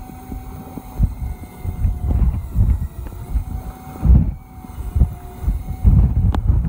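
Wind buffeting the microphone on a boat at sea, over water splashing against the hull, in gusts that swell and fade. A faint steady hum runs underneath, and a single sharp click sounds near the end.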